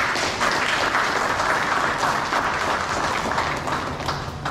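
A roomful of people applauding, steady dense clapping that tails off near the end.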